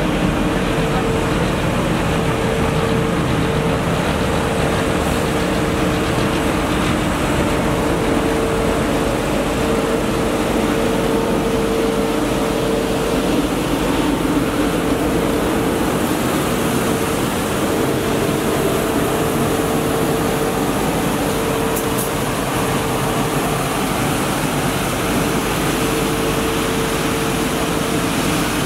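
Mercedes-Benz Arocs 1833 truck-mounted street sweeper working close by: its engine, rotating side brushes and suction run together as a steady, loud rush with a constant whine.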